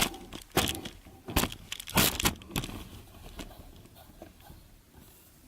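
Handling noise from a DIY camera tripod being adjusted: a series of sharp knocks and scraping rustles for the first three seconds, then quieter fumbling.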